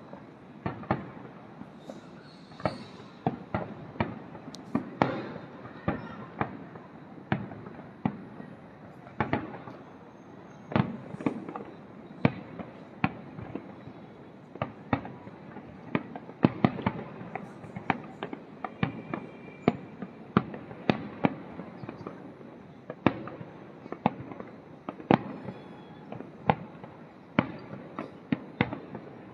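Fireworks display: aerial shells bursting one after another in an irregular, steady run of sharp bangs, about one to three a second, over a continuous background rumble and crackle.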